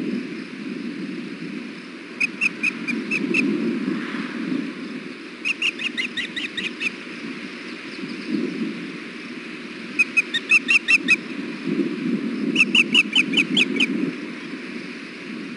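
Osprey calling in four bursts of short, sharp, high chirps, each burst a quick run of about six to nine notes. A steady low rumble runs underneath.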